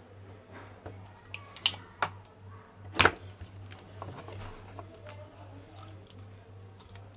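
Sharp clicks and taps of hand tools against a circuit board while a MOSFET is being desoldered, the loudest about three seconds in, over a low steady mains hum.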